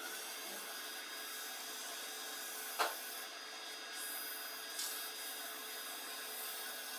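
Wood lathe running steadily with a motor whine while a cloth with sanding paste is rubbed against the spinning wooden bowl, giving a soft hiss. A sharp click about three seconds in and a fainter one near five seconds.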